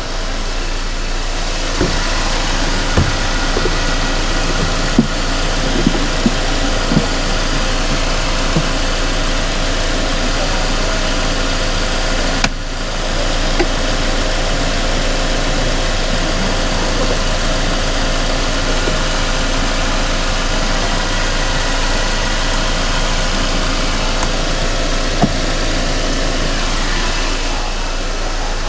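Mercedes-Benz E250 CGI's M271 four-cylinder petrol engine idling steadily, in a car with a rough-idle and cold-start stalling fault. Scattered sharp clicks come through in the first several seconds and again once near the end, and the sound dips briefly about twelve seconds in.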